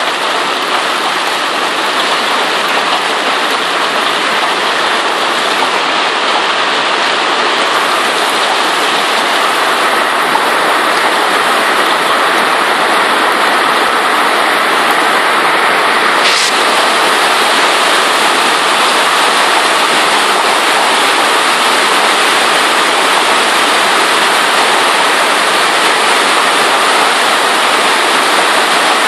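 Hailstorm: hail and heavy rain pelting the street and trees in a dense, steady rush that grows a little louder over the stretch.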